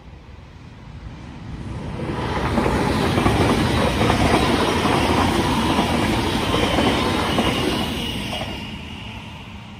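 Queensland Rail Tilt Train passing over a level crossing. Its wheels and rumble build about two seconds in, stay loud for several seconds as the carriages go by, and fade away near the end.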